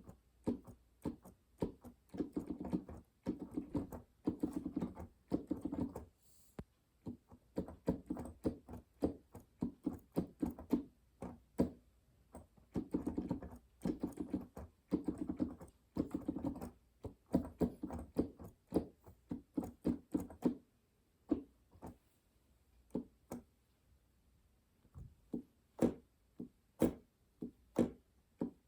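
Key action of a Yamaha NP-35 Piaggero digital keyboard clattering as keys are played: dense runs of clicks and knocks, then single key strikes about a second apart near the end. The action is noisy on the upstroke, with the keys knocking as they spring back.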